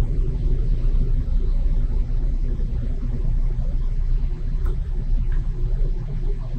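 Steady low machine rumble from a Park Industries Saberjet XP CNC bridge saw running just after its blade offset test cut.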